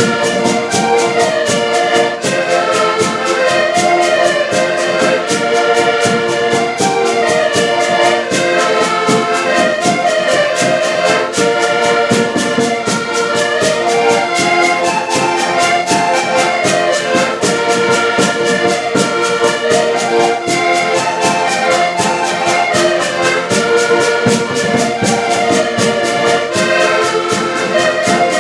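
A band playing a tune at rehearsal, with a melody over a steady, even beat.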